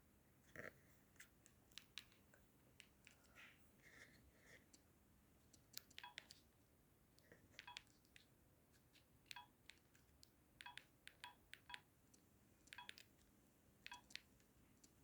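Faint clicks of a Sony Ericsson J120i mobile phone's keypad being pressed one key at a time, irregularly. From about six seconds in, many presses carry a short key beep.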